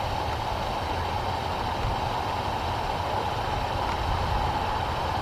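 Steady engine noise: a continuous low rumble with a constant mid-pitched hum running over it, unchanging throughout.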